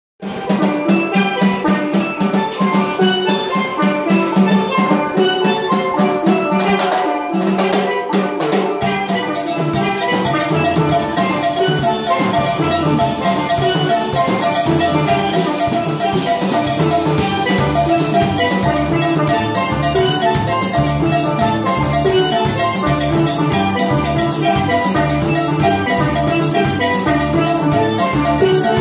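Steel band playing a tune on steel pans, the notes struck with mallets in a lively rhythm. About nine seconds in, a drum kit joins with a steady beat.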